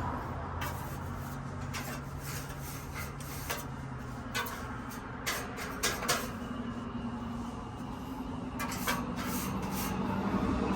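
Irregular light clicks and taps of hands working on a fan's parts as it is cleaned out, over a low steady hum.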